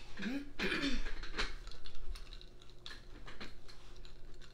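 A run of light, irregular clicks and taps, like typing or tapping on buttons, with a short murmur of a woman's voice in the first second.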